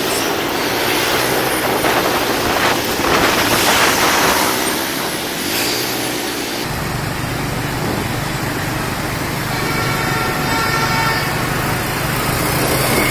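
Busy street traffic heard from a moving motorbike: engines running and passing, with a steady low engine hum setting in about two-thirds of the way through.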